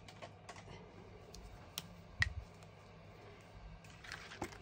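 Faint clicks and taps of hands handling craft supplies, with one sharper click about two seconds in, then the cardstock card rustling near the end as it is picked up and held.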